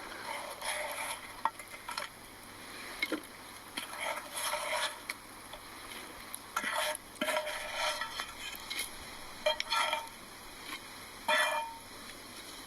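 Green beans frying in butter in a pan, stirred now and then: a sizzle broken by short, irregular scraping strokes of the utensil in the pan.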